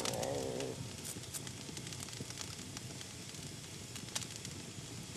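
Log fire crackling in a fireplace: a soft steady hiss with many small sharp pops and snaps scattered through it.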